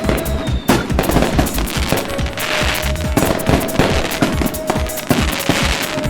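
Fireworks going off in quick succession: many sharp bangs and two spells of crackling, over background music.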